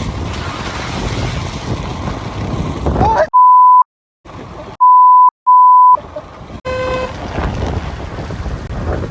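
Steady rush of a monsoon waterfall with wind on the microphone. Midway it is cut out for three loud, steady beeps at one pitch, an edited-in censor bleep, and a short buzzy tone follows about a second later before the water noise returns.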